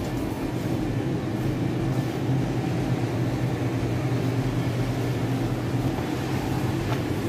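Steady low mechanical hum of supermarket machinery, a constant drone with no change in pitch.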